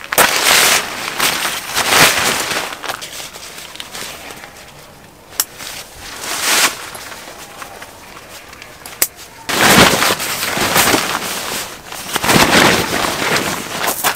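Plastic tarp ground sheet crinkling and rustling as it is spread and smoothed out by hand, in irregular loud bursts with a few quieter stretches and a couple of sharp clicks.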